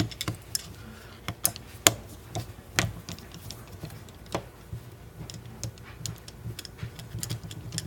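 Small metal clicks and taps of a screwdriver working on a Schlage padlock as it is taken apart to get the core out. Irregular, with a few sharper clicks in the first half and a run of light ticks later.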